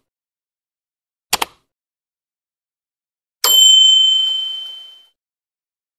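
Sound effects of a subscribe-button animation: a quick double mouse click about a second and a half in, then a single bright bell ding about two seconds later that rings on for well over a second as it fades.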